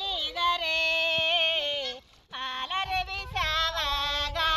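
A woman singing a folk work song while transplanting rice, in a high voice with long held notes that slide between pitches. She breaks off for a breath about two seconds in, then starts the next line over a low rumble.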